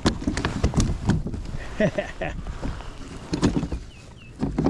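Irregular knocks, thumps and splashing at a kayak as a hooked bass is landed.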